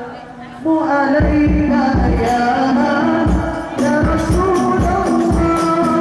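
Hadrah group of young men singing together into microphones, backed by the steady beat of rebana frame drums. The music drops briefly at the start and comes back in under a second.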